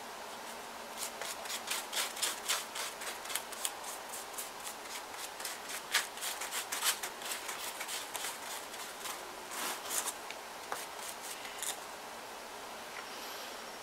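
A paintbrush scratching over a paper mache figure in quick, irregular brush strokes that stop a couple of seconds before the end.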